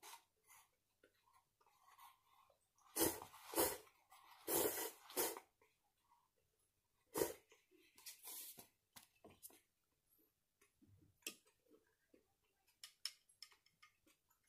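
A person slurping instant soupless oil noodles from the cup, in a few loud bursts about three, four and a half, seven and eight seconds in, with quieter chewing and small clicks between.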